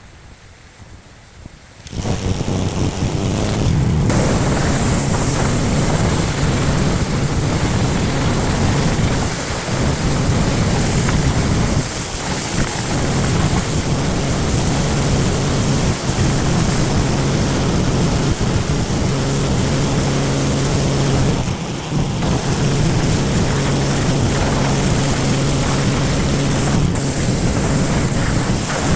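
Pressure washer spraying a vinyl fence to strip mould and grime: the jet starts abruptly about two seconds in, a steady loud hiss of water over the machine's low hum, with a few brief dips when the spray lets up.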